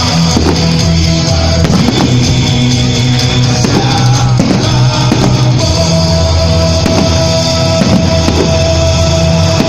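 Loud rock-style band music with drums.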